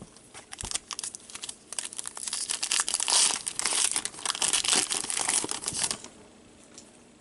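Trading-card pack wrapper crinkling as it is torn open and handled, a dense crackle that grows louder towards the middle and stops about six seconds in.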